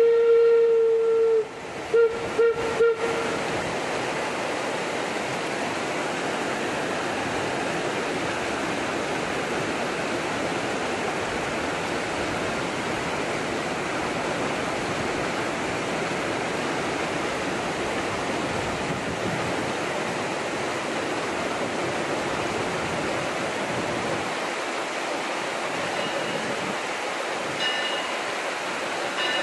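Steam whistle of the wood-burning Eureka & Palisade No. 4 locomotive, a 4-4-0: a long blast ending about a second and a half in, then three quick short toots. After that, the steady rush of the Animas River.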